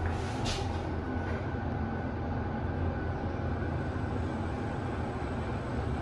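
Schindler 5000 machine-room-less passenger lift travelling upward: a steady low hum and rumble of the car in motion. There is a brief swish about half a second in.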